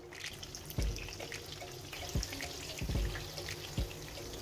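Flatbread dough frying in a pan of hot vegetable oil: steady sizzling full of small crackles and pops as the dough puffs up, with a few dull low thumps.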